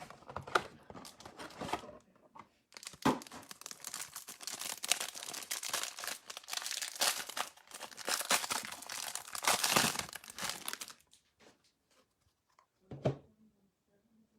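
Trading card hanger box being torn open, with crinkling and tearing of its packaging for several seconds, then one short knock near the end.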